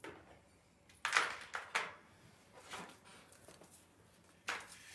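Brief rustles and handling noises of small items and kit packaging being moved about, about five short bursts in all.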